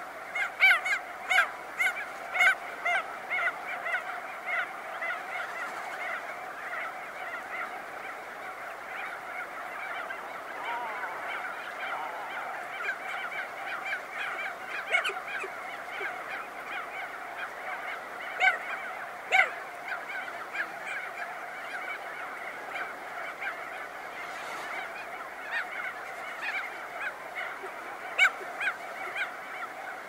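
Crested auklets calling close up over a dense chorus of a colony. In the first few seconds one near bird gives a run of loud calls, about two a second, and a few more loud calls stand out later over the steady background of many birds.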